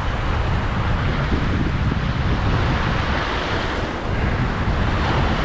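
Sea surf washing steadily, with wind buffeting the microphone in a low rumble.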